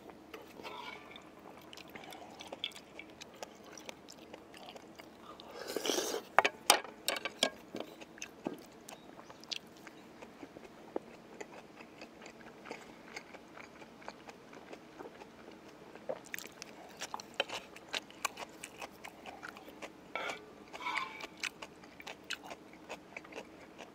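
Close-up eating sounds of a person eating jjamppong noodles and dumplings: chewing and short wet mouth clicks. There is a louder noisy burst about six seconds in and another near the end, over a faint steady background hum.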